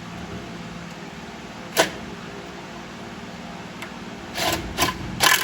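Hand tools and hardware knocking against a metal chassis while parts are bolted up, over a steady hum: one sharp knock about two seconds in, then several quick knocks near the end.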